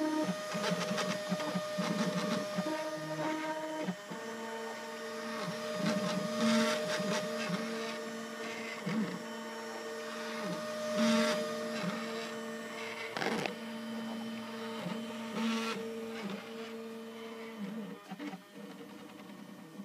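Self-built Ultimaker-style 3D printer printing. Its stepper motors whine in steady tones that switch pitch every second or so as the print head changes direction, with a few brief sharp sounds along the way. The motor tones stop shortly before the end.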